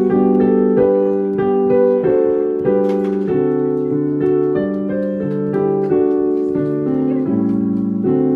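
Piano playing the instrumental introduction to a children's song: a melody over chords changing at a steady beat, with no singing yet.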